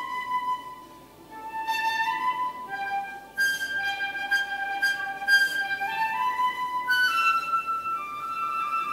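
Music played over the hall's sound system: a slow solo flute melody with long held notes. It dips in volume about a second in, and some notes slide up into the next.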